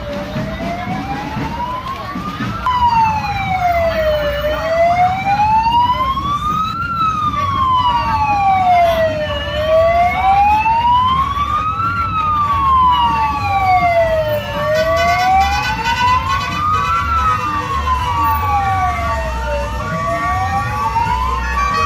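Wailing siren on an odong-odong parade vehicle, its pitch sliding slowly up and down about every five seconds. From about eight seconds in, short repeated higher tones join it over a low rumble.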